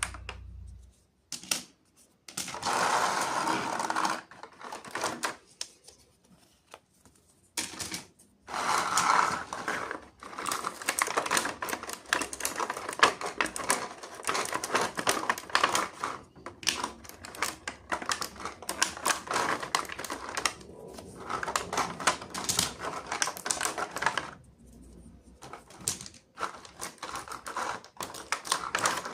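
Small hard plastic toy pieces clicking and rattling as they are handled, in dense irregular runs with a few short pauses.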